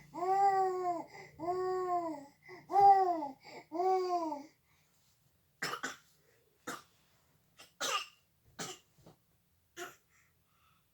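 A young child babbling in four drawn-out, rising-and-falling 'aah' sounds, then a string of about seven short coughs.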